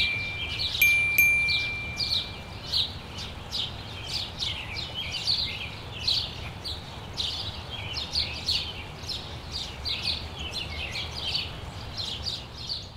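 Birds chirping in quick, irregular short down-slurred notes, several a second, over a steady low rumble, with a held high whistle-like tone that stops about a second and a half in.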